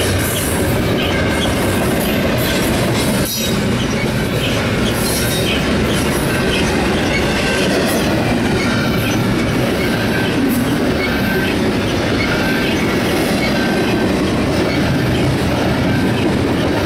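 Double-stack container train's well cars rolling past: a steady rumble of steel wheels on rail, with short high-pitched wheel squeals now and then.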